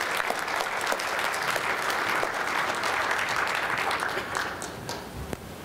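Audience applauding, many hands clapping, dying away about four and a half seconds in. A single knock follows near the end.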